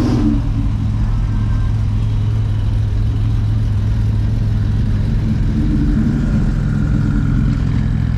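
A car engine running steadily at idle with a low exhaust rumble.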